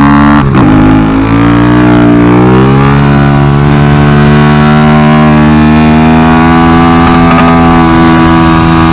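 Kawasaki Z125's single-cylinder four-stroke engine at full throttle. About half a second in it breaks briefly for a gear change, then revs climb and hold flat at the top, running on the rev limiter.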